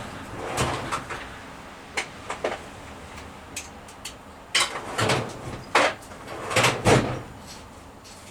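Metal hand tools clattering and knocking at irregular intervals, as a socket set is rummaged through for a 9/16 inch socket. The knocks come closer together and louder in the second half.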